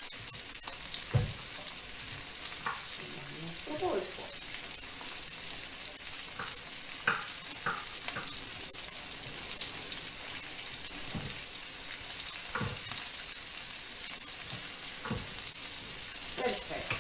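Chopped red and yellow bell peppers frying in oil in a skillet, a steady sizzle. Now and then a knife knocks on a wooden cutting board as boiled octopus is cut.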